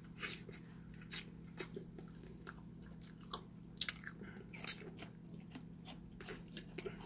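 A person chewing food close to the microphone, with irregular wet mouth smacks and clicks. A few sharper ones come about a second in and twice around the middle.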